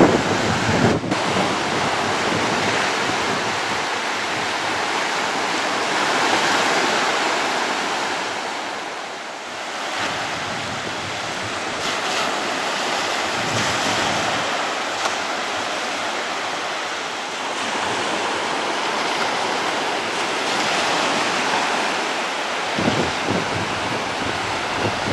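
Sea surf breaking and washing on the shore, a steady rushing noise that rises and falls in slow swells, with wind buffeting the microphone now and then.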